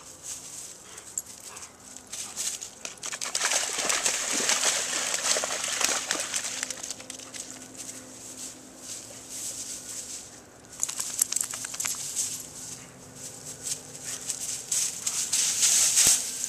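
Dry grass rustling and crackling as a Rhodesian Ridgeback pushes and noses through it, coming in two spells with a quieter stretch in the middle.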